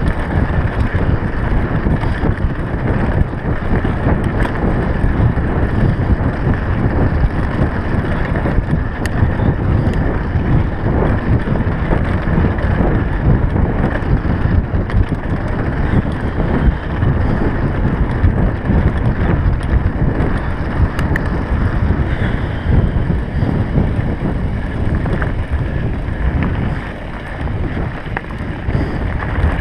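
Wind buffeting the microphone of a handlebar-mounted camera on a mountain bike riding a rough dirt track, with the bike and its tyres rattling over gravel. The level dips slightly near the end.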